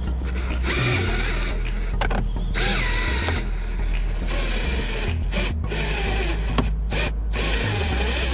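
A small power tool whines in stretches of a second or two, stopping and starting several times. It is winding the cutting line of a line-type windshield removal tool through the urethane along the bottom of the glass.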